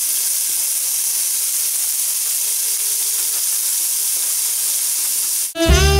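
Asparagus sizzling in butter and garlic in a nonstick frying pan, a steady hiss. It cuts off near the end as music starts.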